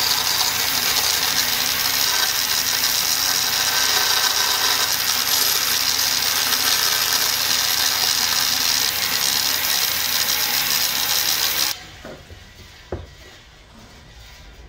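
Stationary power saw with a narrow vertical blade running and cutting small wooden blocks: a steady, loud noise. It stops abruptly near the end, followed by a single light knock.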